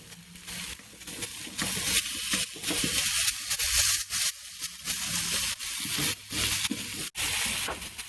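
Bone-in chicken thighs sizzling and crackling on hot charcoal grill grates as they are moved across the grill. The sound cuts out for an instant about seven seconds in.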